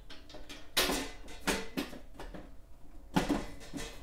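Several sharp metallic clicks and knocks from the steel cover of a circuit-breaker panel being handled, its metal knockout tabs being popped out. The loudest knocks come about a second in and just after three seconds.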